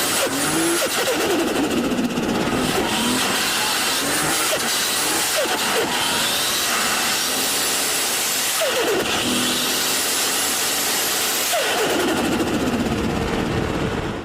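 Turbocharged car engine revving again and again, a high turbo whistle rising with each rev, with the fluttering "sututu" of compressor surge as the throttle closes.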